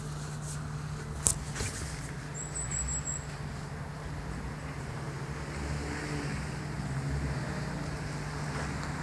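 Steady low rumble of road traffic, with one sharp click a little over a second in and a brief thin high whistle around two and a half to three seconds in.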